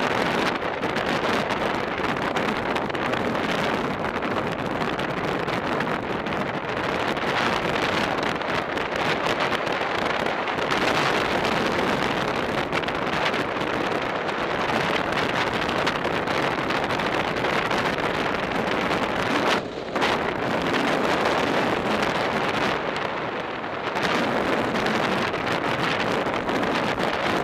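Wind rushing over a bike-mounted camera's microphone at racing speed: a steady rush of wind noise, with a brief drop about twenty seconds in.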